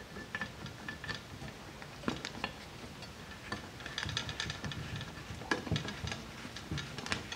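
Small parts being handled and fitted: scattered light clicks and clinks of bolts, nylon washers and a flapper valve being worked into place on a fuel-cell fill plate, with a quick run of clicks about four to five seconds in.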